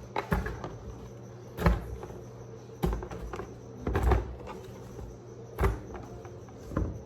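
Watermelon pieces being loaded into buckets: about six irregular thuds and knocks, a second or so apart.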